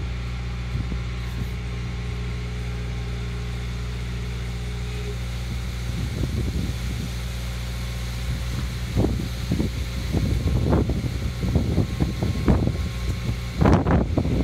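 Skid steer loader engine running steadily, with irregular clanks and knocks joining in about nine seconds in and getting louder near the end.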